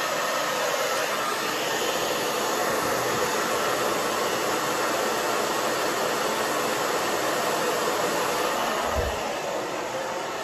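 Handheld hair dryer switched on and running steadily with a constant rush of air. About nine seconds in there is a low bump, and the dryer sounds a little quieter after it.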